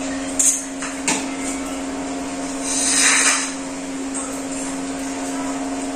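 A steady hum runs under everything. There are a couple of light clinks of steel plates in the first second and a short hiss about three seconds in.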